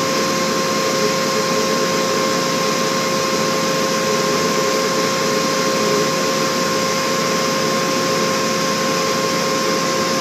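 Cleaver Brooks FLEX boiler's gas burner firing with its combustion-air blower running: a steady rush of air and flame with a steady whine at one fixed pitch.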